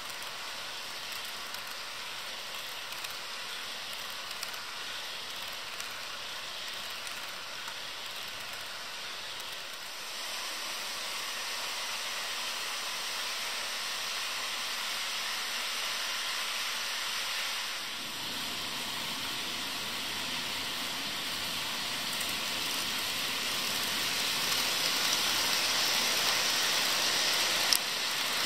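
HO-scale model freight train rolling along sectional track: a steady rushing rumble of its wheels on the rails, growing louder in the later part, with one sharp click near the end.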